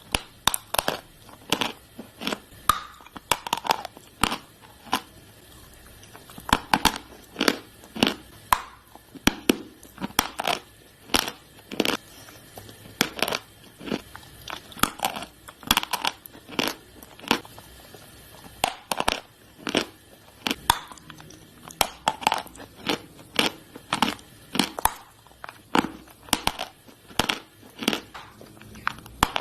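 Close-up chewing of dry chalk sticks: loud, sharp crunches in an irregular run of roughly one to two a second.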